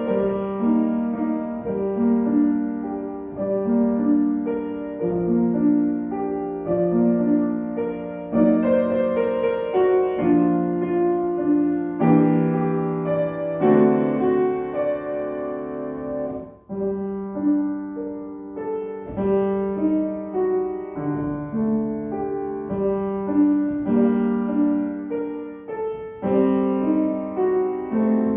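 Solo piano playing a slow melody over chordal accompaniment, with a brief break a little past halfway.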